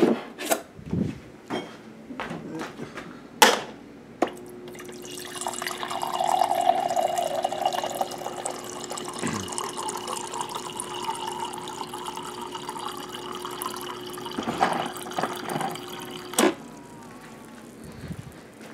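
Refrigerator door water dispenser pouring a stream into a ceramic mug for about twelve seconds, with a steady hum from the dispenser; the pour's pitch rises a little as the mug fills, and it stops with a click. Before the pour come knocks and a sharp clack of the mug being handled.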